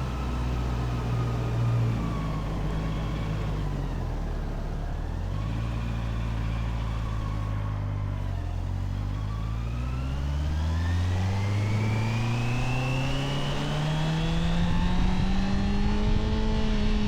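Honda CBR650R inline-four engine on its stock exhaust, riding along: the revs drop off and pick up a couple of times, then climb in one long, steady pull through the second half before levelling off near the end.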